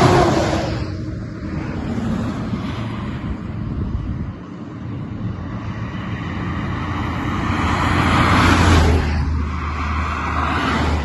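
Highway traffic passing close by: a tanker semi-truck goes past at the start, its noise falling away over a couple of seconds. A second truck's noise and low engine hum build to a peak about eight and a half seconds in, and a car passes near the end.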